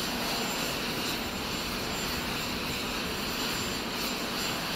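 Steady jet aircraft noise on an airfield: a constant roar with a faint high whine running through it.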